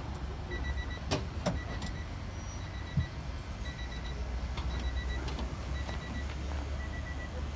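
A car's electronic warning beeper sounding in short rapid pulses, in bursts repeating about once a second, over a steady low rumble. A few sharp clicks and a knock come in about a second in and around three seconds in.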